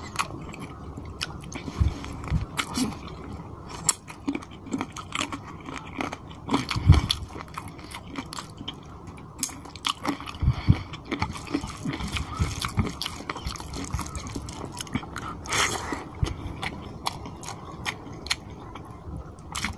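Close-miked chewing of chicken curry and rice eaten by hand, with irregular wet mouth smacks and clicks, one louder smack about seven seconds in.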